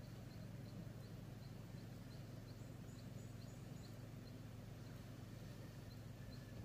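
Faint outdoor ambience: short high chirps repeating about three times a second, with a few higher-pitched chirps in the middle, over a steady low hum.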